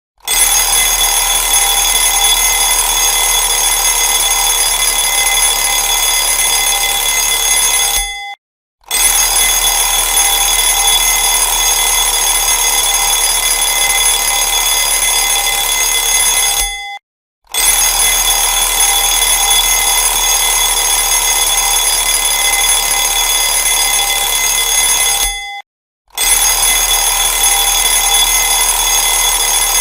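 Alarm clock ringing loudly, signalling that the one-minute countdown has run out. It rings in stretches of about eight seconds, each broken by a short gap of about half a second.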